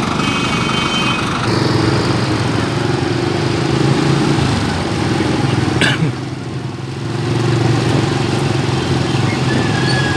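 Small motorcycle engine running steadily at low road speed. Its hum dips briefly about six seconds in, then carries on.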